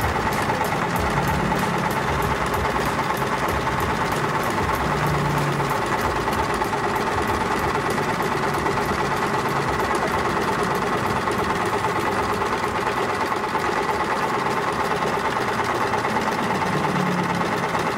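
Riccar 987 portable electric sewing machine running steadily at speed, sewing a decorative zigzag stitch through thin fabric: a fast, even clatter of needle strokes over the steady whine of its motor.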